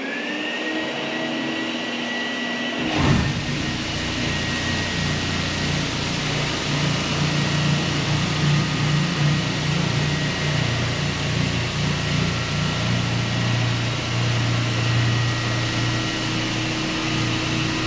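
Hyper Grinders Hyper Orbit random-orbit floor sander and its dust vacuum running. The motor winds up to a steady high whine at the start. About three seconds in there is a knock, then a low rumble that lasts to the end as the sanding pad works the wood floor.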